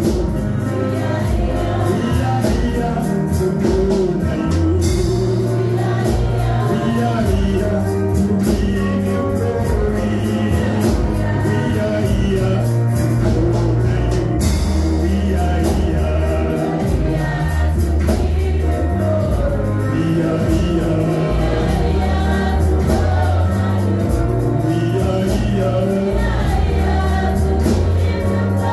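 Live gospel worship music: a male worship leader and a group of backing singers singing through microphones over keyboard and drums with a steady beat.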